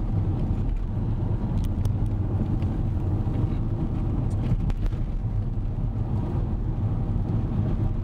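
Steady low rumble of a car's engine and tyres on the road, heard inside the cabin while driving, with a few faint ticks.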